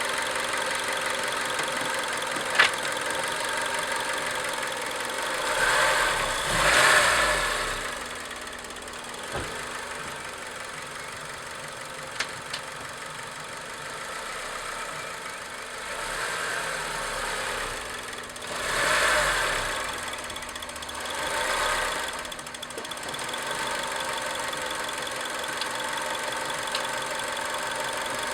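Acura RSX Type-S 2.0-litre four-cylinder engine idling steadily with a ticking. The sound swells louder a few times, with a few sharp clicks. The ticking is the noise the owner is seeking help with, heard once the engine is warm; its cause is unknown.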